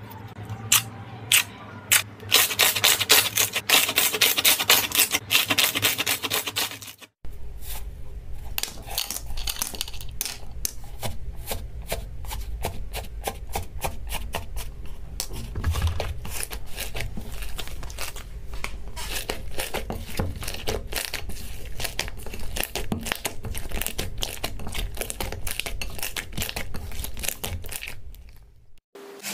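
Hands squeezing and pressing slime, making sticky popping and crackling sounds: a few separate pops at first, then dense crackling. After a short break about seven seconds in, a second slime is pressed and kneaded with a steady run of small clicks and squishing.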